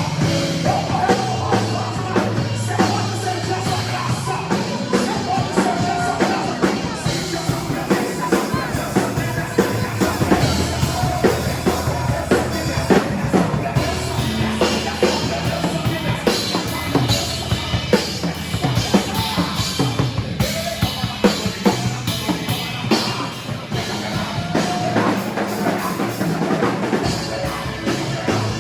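Live band playing an instrumental passage with a full drum kit, bass and keyboards, the drums prominent with many snare and kick hits.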